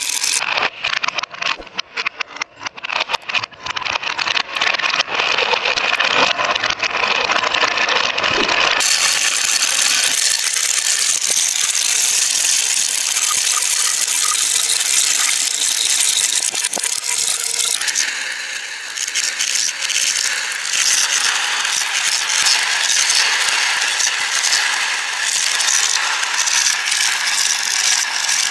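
Marbles rolling and clicking along a marble run track. For the first several seconds they come as separate clicks, then from about nine seconds in as a dense, continuous rattle of many marbles.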